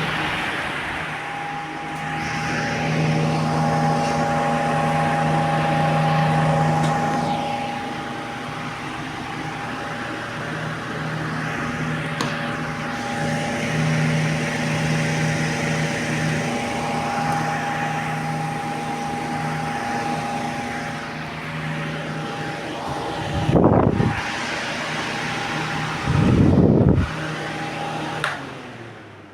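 Mondial VT-40-B 40 cm table fan running, a steady motor hum under the rush of air from the blades. Near the end there are two brief, louder low surges, and then the hum and air noise die away.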